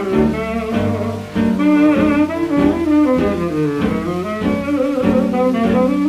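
Swing-era jazz orchestra playing a fox trot, heard from a 1936 Brunswick 78 rpm record.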